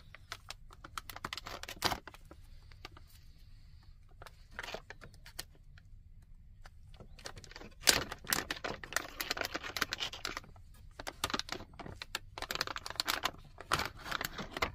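Plastic packaging bags, one of them an anti-static bag, crinkling and rustling as gloved hands handle them and pull out the device, with scattered clicks and taps. The crinkling is sparse at first and gets busy from about eight seconds in, in two spells.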